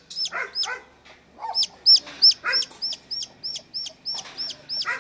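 Birds calling: a high, quickly falling chirp repeated about three times a second after a short pause near the start, with lower calls mixed in among the chirps.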